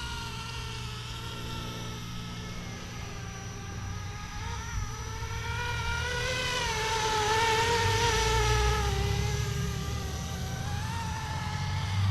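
Flishrc Little Bird 450 RC helicopter in flight: a steady whine from the motor and rotor with its pitch wavering. It grows louder from about six seconds in, peaks near eight seconds, then eases off.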